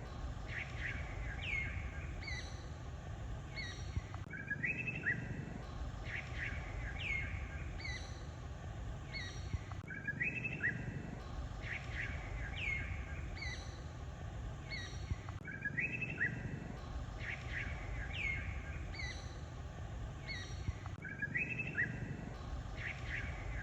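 Small birds chirping, with quick falling whistled calls over a steady low rumble. The same few-second run of calls repeats about every five and a half seconds, like a looped nature-ambience track.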